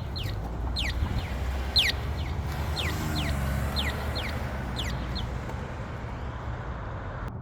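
Crosswalk accessible pedestrian signal sounding its walk indication through a Wilcox speaker: a repeating quick falling chirp about once a second, stopping about five seconds in. Steady traffic rumble underneath.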